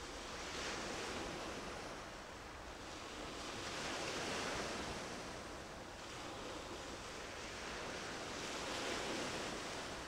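Waves washing in: a steady rushing that swells and fades three times, about every four seconds.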